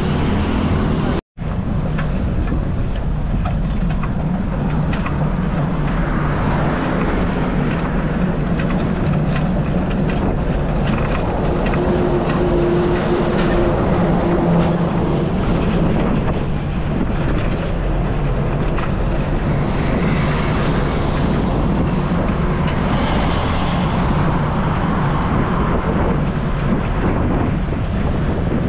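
Wind buffeting the microphone of a camera riding on a moving bicycle, a steady rumbling rush mixed with road noise. The sound cuts out completely for a moment about a second in.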